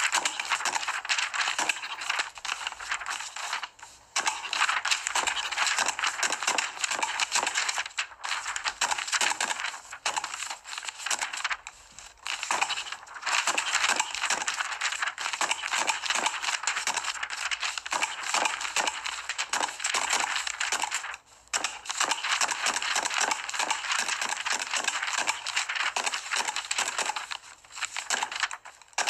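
Sheets of paper rustling and being flipped on a desk, a dense run of crinkles and ticks broken by a few short pauses, mixed with the knocks of a self-inking hand stamp pressed onto the pages.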